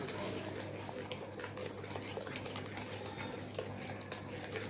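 A metal spoon stirring thick yogurt-and-spice marinade in a ceramic bowl: wet squishing with scattered light clicks of the spoon against the bowl.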